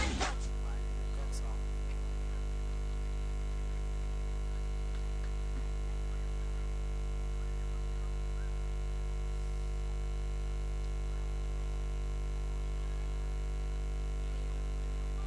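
Dance music cuts off right at the start, leaving a steady low electrical mains hum with a stack of overtones.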